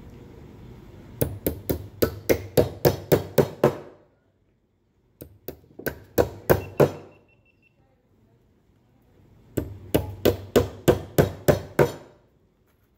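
Claw hammer driving nails into a pine box joint: three runs of quick, even strikes, about four a second, with short pauses between the runs.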